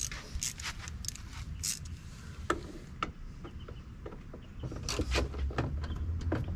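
Irregular light clicks and taps of small metal hand tools on a van's plastic door panel as a Torx screw is picked at and then turned with a small ratchet. A low hum comes in near the end.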